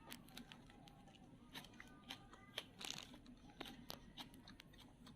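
Faint eating sounds: chewing and crunching food, with many scattered small clicks and crackles.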